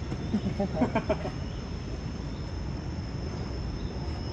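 Steady high insect drone over a low background rumble, with a brief burst of voice-like sounds about half a second to a second in.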